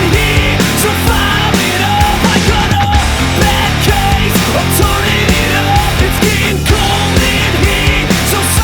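Loud rock music with heavy distorted guitars and a steady beat.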